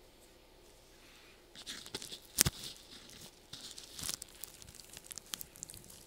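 Hand rubbing and adjusting a clear plastic mouth shield close to an earphone-cord microphone: crinkly, scratchy rustling with many sharp clicks, the loudest click about two and a half seconds in.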